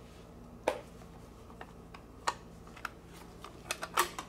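Plastic fly box being handled and opened, its latch clicking and lid snapping: a handful of sharp plastic clicks spread out, with a quick cluster of them near the end.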